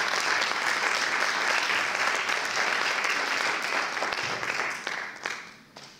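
Applause from the audience and the panel: steady, dense clapping that dies away near the end, with a few last claps.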